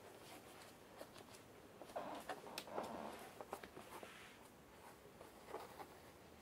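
Faint rustling of hair and clothing being handled, with small clicks and scratches, busiest from about two to four seconds in.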